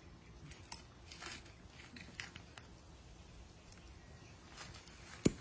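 Scattered light clicks and taps of a screwdriver and small metal hand tools being handled by a capuchin monkey, with one sharp, louder click near the end.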